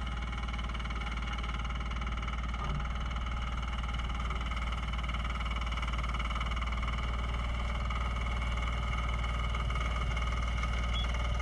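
TZ-4k-14 mini bulldozer's engine running at a steady, unchanging speed.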